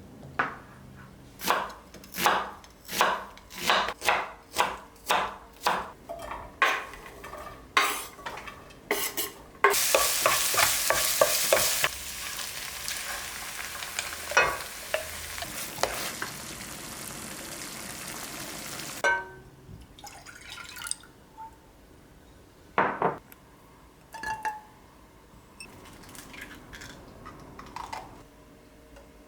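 Stirring in a bowl with a kitchen utensil: about a dozen rhythmic strokes, then a steady hiss for about nine seconds, then a few scattered clinks.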